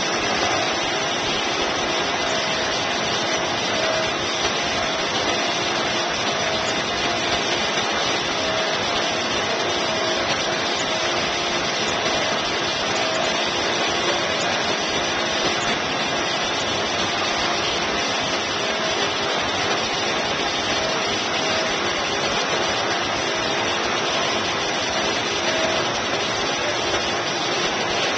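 Steady rushing of water with a constant mechanical hum underneath, the sound of a pump circulating water through a stingray pool.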